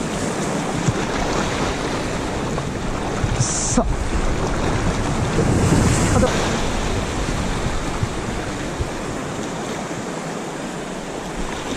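Shallow ocean surf washing and foaming, with wind buffeting the microphone.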